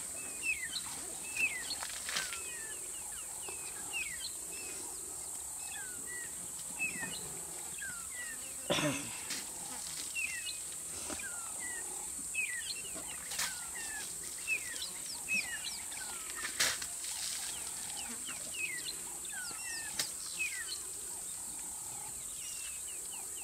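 Bush ambience: a steady high insect drone, with many short falling bird whistles repeated throughout. There are a few sharp clicks, and about nine seconds in comes one louder sweep that falls steeply in pitch.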